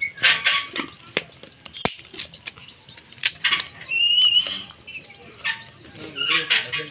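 Dry sticks and twigs clattering and snapping as they are fed by hand into a small wood fire in a clay chulha, with scattered sharp clicks. A bird chirps briefly about four seconds in.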